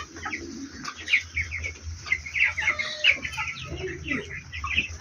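A flock of broiler chickens peeping and clucking, many short overlapping calls at once, over a low steady hum.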